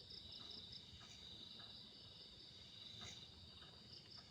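Faint night insects, crickets trilling steadily in a high, even drone with light chirping above it, and a few soft rustles.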